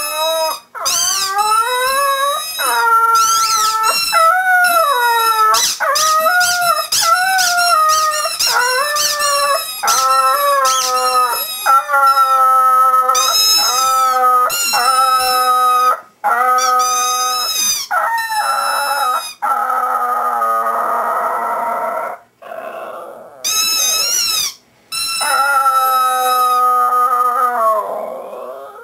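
Yorkshire terrier howling: long, wavering, high-pitched notes broken by short pauses, with several bursts of quick squeaky notes in between.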